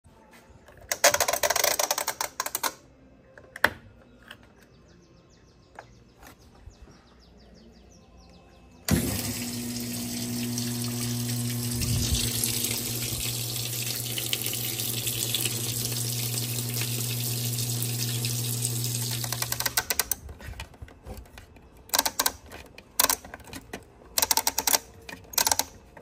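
Electrolux Top8 washing machine filling: about nine seconds in, the water inlet valve opens with a steady low hum and water rushes into the tub for about eleven seconds, then stops. A few brief rustles and a click come before it, and a run of quick mechanical clicks near the end.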